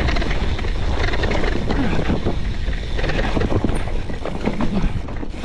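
Hardtail mountain bike descending a rough, rutted trail at race pace: continuous rattling and clattering of the frame, chain and tyres over the ground, over a steady rumble of wind on the microphone.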